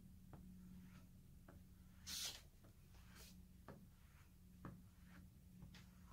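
Faint strokes of a flexible potter's rib being drawn across a soft clay slab to smooth it, with a short swish about two seconds in and light ticks, over a low steady hum.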